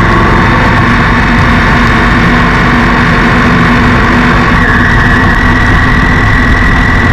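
Vehicle engine running at steady revs while driving.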